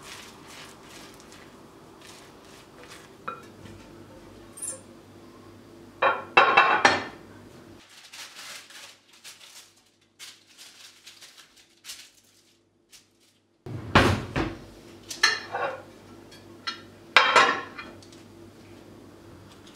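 Glass and metal kitchenware clattering on a stone countertop: a glass baking dish being handled and a metal spoon clinking. The clatter comes in about four short bursts.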